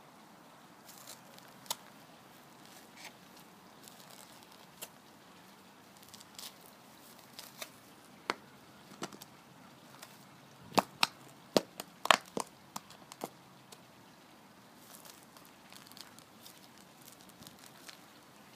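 High-heeled, studded lug-sole boots stepping slowly on grass and a concrete path: scattered soft crackles and crinkles under the soles, with a run of louder, sharp heel clicks and scrapes a little past halfway.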